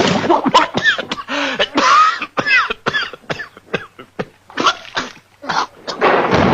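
Vintage hand-made cartoon sound effects: a quick, uneven run of pops, clicks and short squeaky chirps that bend up and down in pitch, each well under a second, with brief gaps between them.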